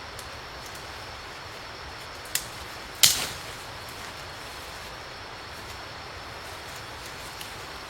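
Two sharp knocks or cracks, the second and louder one a little over half a second after the first, over a steady hiss of background noise.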